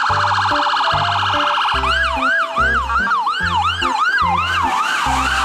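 Electronic ambulance siren: a very fast warble for the first couple of seconds, then a rising-and-falling yelp about three times a second, over background music with a steady bass beat.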